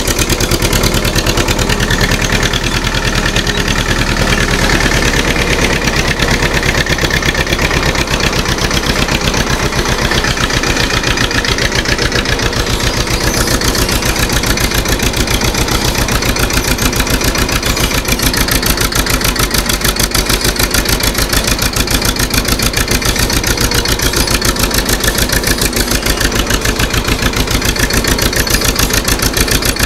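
TAFE 25 DI tractor's diesel engine running with a steady, rapid chugging beat.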